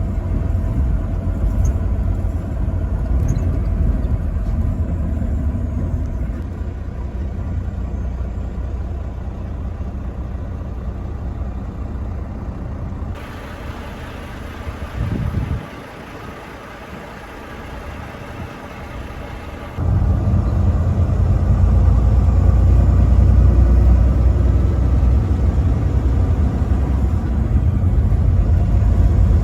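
Low, steady rumble of a truck driving on the road, engine and tyre noise together. It turns quieter and thinner about thirteen seconds in, then comes back full and loud all at once about twenty seconds in.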